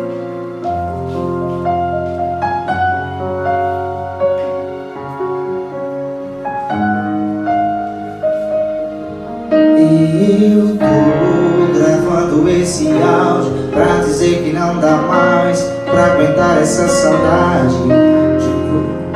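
Roland electronic keyboard playing a slow piano accompaniment of held chords. About halfway through a man's singing voice comes in over it, louder, with wavering held notes.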